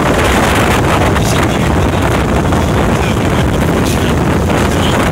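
Strong wind buffeting the microphone: a loud, steady rush of noise, heaviest in the low end, drowning out everything else.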